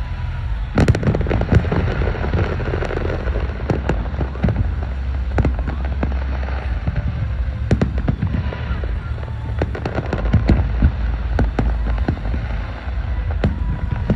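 Aerial fireworks display: shell bursts going off in quick succession with crackling pops over a low rumble, the first loud bang about a second in.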